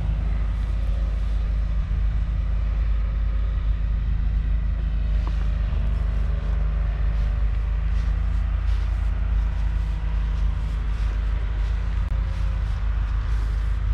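1962 Nuffield 4/60's 3.8-litre four-cylinder diesel engine idling steadily.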